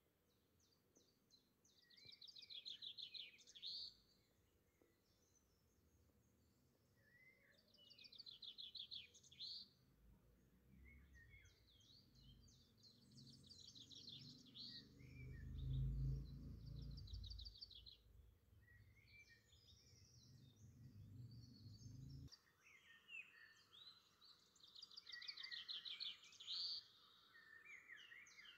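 Faint birdsong: small birds singing bursts of rapid, high trills and chirps again and again. A low rumble swells through the middle, is loudest about halfway through, and breaks off suddenly about three-quarters of the way in.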